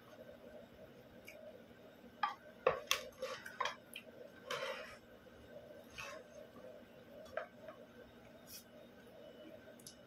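Mealtime sounds: scattered clinks and taps of ceramic plates and bowls, with chewing and mouth noises from eating by hand. The clinks cluster about two to four seconds in, with a few single taps later.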